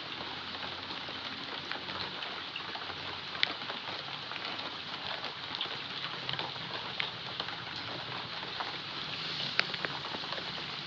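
Steady hiss of falling rain, with many scattered sharp ticks of drops striking close by.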